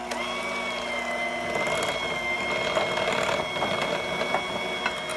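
Electric hand mixer running, its twin beaters churning a thick mascarpone, ricotta and powdered-sugar mixture in a glass bowl: a steady motor whine over the rattle of the beaters, a little louder from about a second and a half in.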